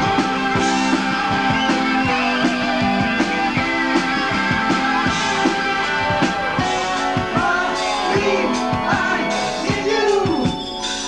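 Live rock band playing: regular drum beats under electric guitar and other held notes, with a singing voice over them.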